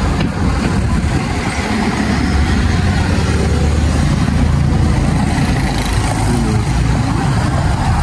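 Car engine and road noise heard from inside the cabin: a steady low rumble.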